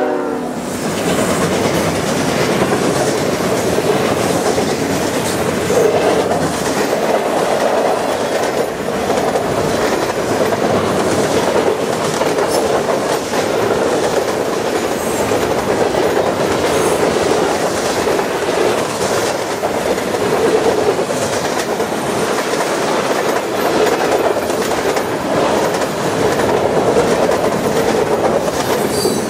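Long freight train rolling past at close range: steady wheel-on-rail rumble of loaded freight cars with a running clickety-clack of wheels over rail joints.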